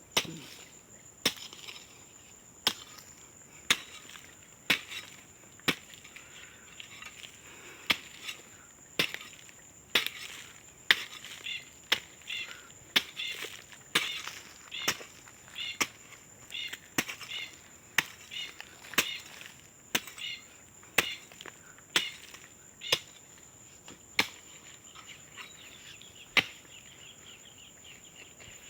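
Repeated chopping strokes of a hand tool, about one a second, stopping near the end, with insects trilling steadily.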